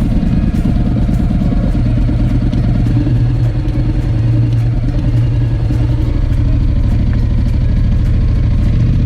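Honda X-ADV motorcycle's parallel-twin engine running at a steady speed while riding, a constant drone over low rumble.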